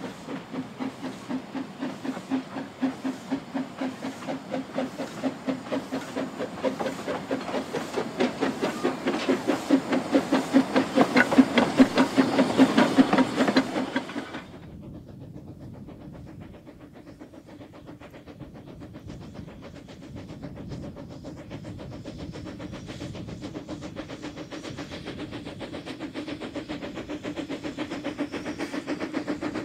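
Narrow-gauge steam locomotive chuffing as it pulls away, its exhaust beats coming about twice a second and growing louder. The sound cuts off sharply about halfway. Then a steam locomotive is heard fainter and more steadily from afar, slowly growing louder as it approaches.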